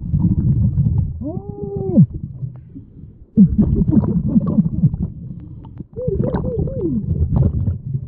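Scuba diver's exhaled bubbles rumbling underwater in long breaths, with the diver's voice muffled through the regulator: a rising-and-falling 'ooh' about a second and a half in, and a wavering hum near the end.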